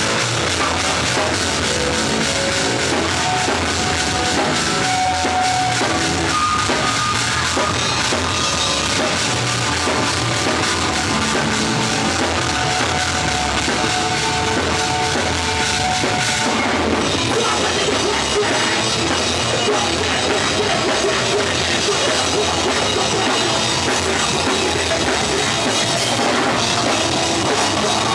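A rock band playing live and loud: electric guitar and drum kit with cymbals. Held guitar notes give way to a denser full-band sound a little past halfway.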